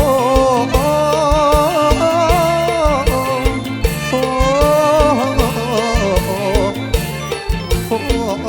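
Live Isan luk thung band music: a steady drum beat under a wavering melodic line that is sung as a long drawn-out "oh".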